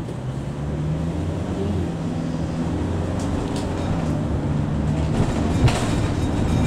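Cabin noise inside a Mercedes-Benz Sprinter 516 CDI minibus on the move: a steady low diesel engine drone and road rumble, growing slightly louder as the bus gets under way. A single sharp knock sounds about five and a half seconds in.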